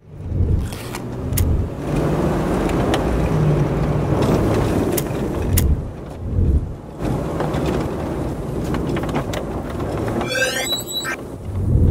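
Steady low rumble of a moving road vehicle, with scattered clicks and knocks. A short run of high rising chirps comes near the end.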